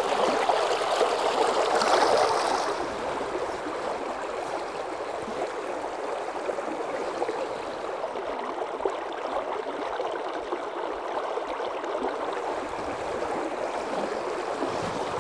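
Shallow river current rushing over rocks, a steady flowing noise that is louder and brighter for the first two or three seconds and then settles.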